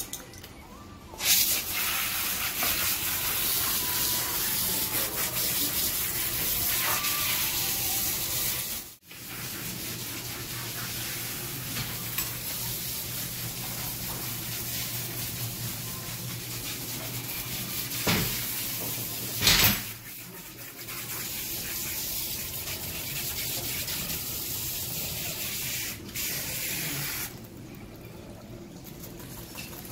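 Water spraying from a hand-held shower sprayer onto a dog in a dog-wash tub: a steady hiss that breaks off briefly about nine seconds in and drops lower near the end. Two sharp knocks come about two thirds of the way through.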